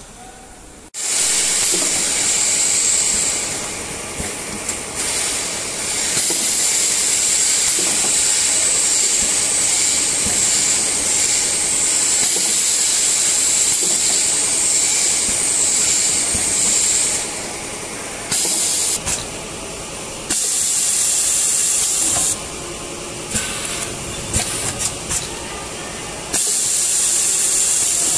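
Loud, steady hiss of compressed air from a pneumatic oil-filling and packing machine. It starts about a second in and runs unbroken for some fifteen seconds, then cuts off and comes back abruptly several times, with faint mechanical clicks in the quieter stretches.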